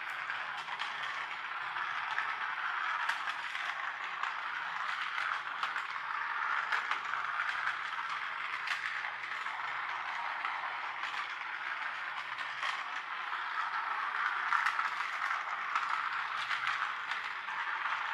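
Toy helicopter track follower running along its puzzle track: its small battery-powered motor and gears run steadily, with many light clicks through the sound.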